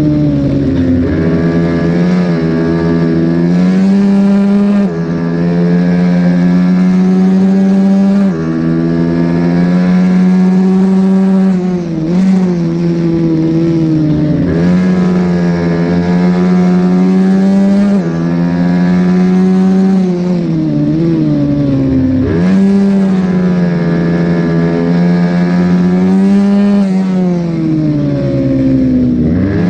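Racing minibike engine at high revs through a lap, its pitch climbing and dropping again and again, with sudden dips where the throttle is closed and it comes back on.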